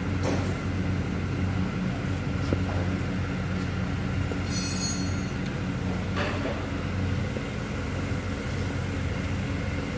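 A steady low mechanical hum, like a running machine, with a brief high-pitched squeal about four and a half seconds in.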